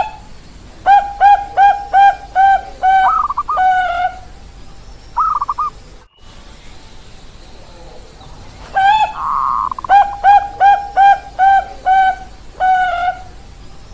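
Zebra dove (perkutut bangkok) cooing: two song phrases, each a run of about seven quick, clipped coos followed by a higher trilled note.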